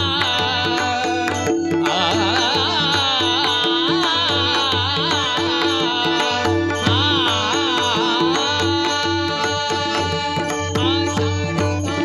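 Indian devotional music: an ornamented, wavering melodic line over a steady rhythmic drum accompaniment.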